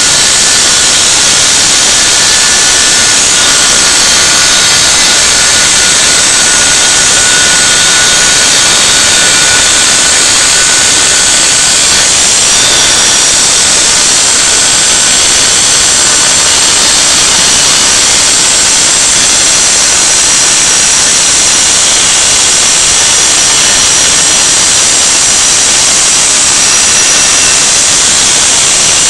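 Vacuum cleaner running as dust extraction beside a DIY CNC milling machine whose spindle is cutting a pocket into a pine board: a loud, even rush of air with a faint high whine over it.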